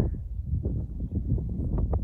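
Wind buffeting the microphone, an uneven low rumble.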